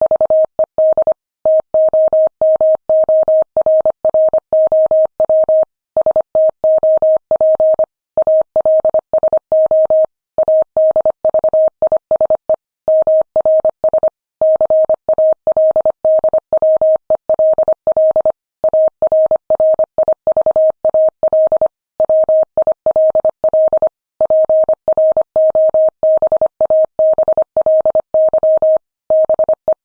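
Morse code sent at 25 words per minute as a single steady tone of about 600 Hz, keyed on and off in quick dots and dashes, with longer pauses between words.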